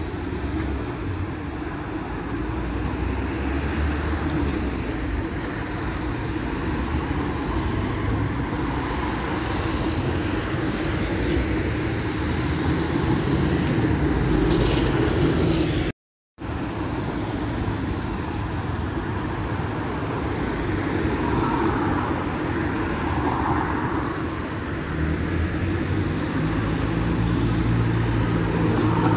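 Road traffic on a city street: a steady mix of vehicle engines and tyres, with cars passing close by. There is a brief break in the sound about halfway through.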